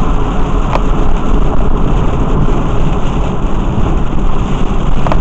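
Car driving on a wet freeway in rain, heard from inside the car: a steady rumble of road and tyre noise mixed with rain. There are two sharp ticks, one about a second in and one near the end.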